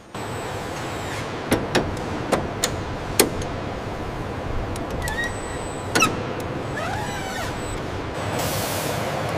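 Aircraft assembly-hangar ambience: a steady machinery hum with scattered sharp clicks and clanks of tools and fittings, a few short squeaky chirps around the middle, and a steady hiss that comes in near the end.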